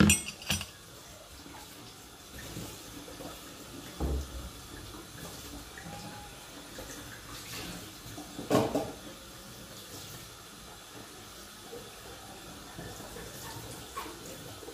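Steady running-water sound in a kitchen, with a few clicks at the start, a thump about four seconds in and a louder knock a little past eight seconds.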